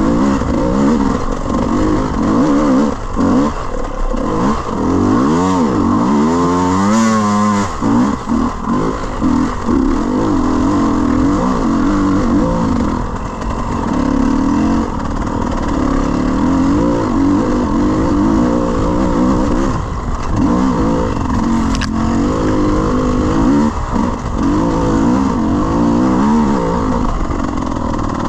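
Enduro dirt bike engine revving up and down as the rider works the throttle on a slippery, muddy trail, with a steep climb in revs about seven seconds in.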